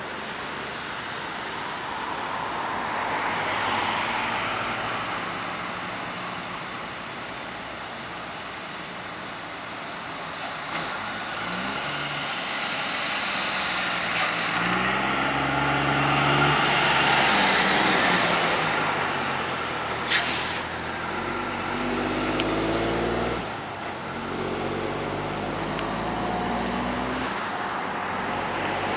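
Diesel semi tractor pulling a box trailer drives past, its engine pitch climbing and dropping in steps as it shifts up through the gears. About two-thirds of the way through, a short sharp air hiss is heard, like an air brake release.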